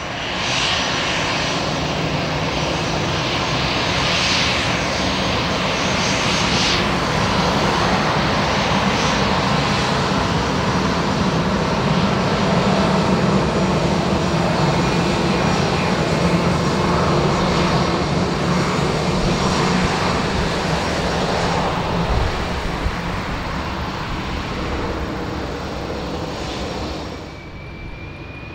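Airbus A319-111 taxiing with its CFM56 turbofan engines at idle: a steady jet-engine rumble with a whine over it. Near the end the sound drops to a quieter level, and a thin high whine rises slowly.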